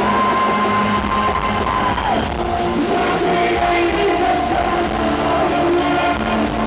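Acoustic rock band playing live, with one long held note that slides down about two seconds in, over steady accompaniment.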